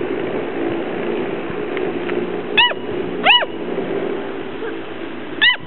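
Gordon Setter puppies giving short, high yips, each rising then falling in pitch: two close together in the middle and one more near the end, over a steady low hum.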